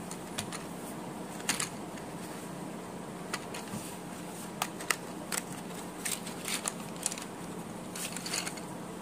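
Scattered clicks, taps and crackles of a cardboard DOMS pencil box being opened and its pencils and small items handled, with a cluster of rattling clicks near the end. A steady low hum runs underneath.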